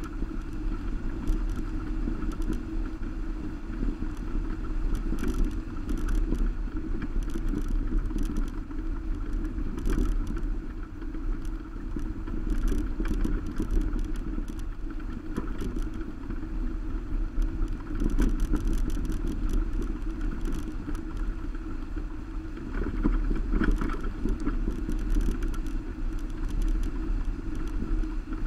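Subaru Baja driving along a gravel road, heard from a camera on its roof rack: a steady low rumble of tyres, wind and drivetrain, with scattered light ticks and rattles from the rough road surface.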